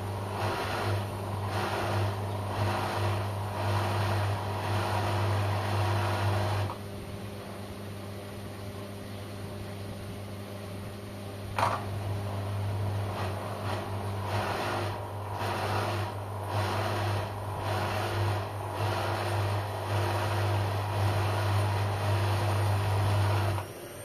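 LG front-loading washing machine washing: the motor hums while the drum tumbles the load with a rhythmic swish about every three-quarters of a second. The drum stops for about five seconds, a sharp click sounds, and it starts turning again until just before the end.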